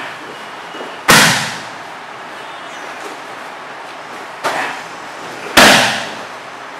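Bare-foot Muay Thai kicks, teeps and right roundhouse kicks, smacking into a body pad held by a partner. There is a loud slap about a second in, then a lighter hit and another loud slap close together near the end, each with a short echo.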